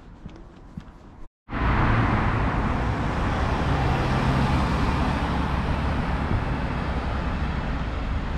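Steady road-traffic noise, the rumble and hiss of passing cars and engines, that starts abruptly after a short break about a second and a half in.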